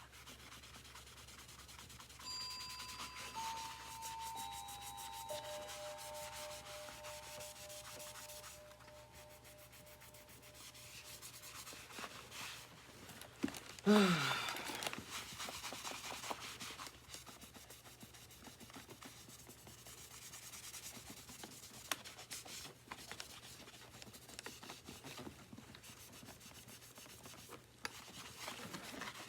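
Steady hand rubbing and scrubbing on a surface, as when cleaning and polishing a vacuum's housing. Several faint held tones sound a couple of seconds in, and a short, sharp squeak falls in pitch about halfway through.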